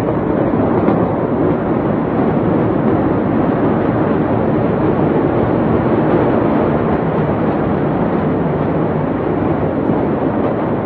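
Steady, loud rushing noise on a phone recording of a warehouse fire's rising smoke plume, with no distinct bangs or crackles.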